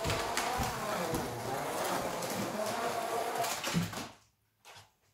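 Carrera Digital 1:32 slot cars running on the track, their small electric motors whining with a wavering pitch amid clicks and knocks. The sound cuts off abruptly about four seconds in, leaving near silence with one short knock.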